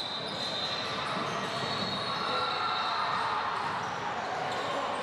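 Youth basketball game in a large gym: a basketball bouncing on the hardwood court over a steady background of game and crowd noise.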